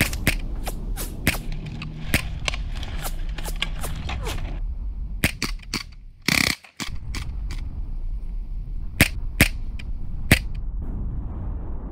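Staged gunfire: a rapid string of sharp shots, about three or four a second, for the first four seconds or so. A short loud burst of noise comes just past the middle and cuts off abruptly, then three single shots near the end.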